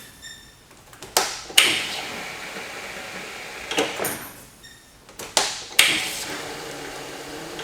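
A chemical dispenser's activation button engaged with sharp plastic clicks, with water rushing through the eductor to flush out the chemical. Two clicks start a flow that runs for about two seconds and stops at a third click; two more clicks a couple of seconds later start it running again.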